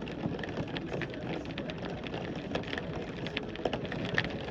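Steady rain, with scattered drops ticking sharply on a nearby surface.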